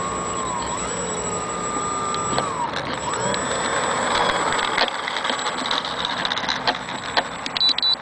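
Twin brushless electric motors and propellers of an RC P-38 Lightning foam warbird whining as the throttle is worked: the pitch climbs and holds, drops away about two and a half seconds in, then rises again. A few sharp clicks come near the end.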